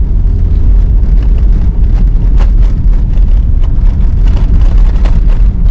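Loud, steady rumble of a small engine under way, as from a motorized towing sled (motobuksirovshchik) pulling loads over snow.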